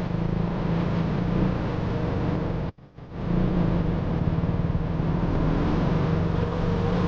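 Single-cylinder 200 cc motorcycle engine running at a steady pitch while riding, recorded from the bike. The sound drops out almost completely for about half a second near three seconds in, then returns at the same pitch.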